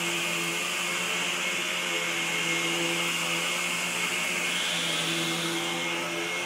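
Vacuum cleaner running steadily, a constant high whine over its motor and airflow noise.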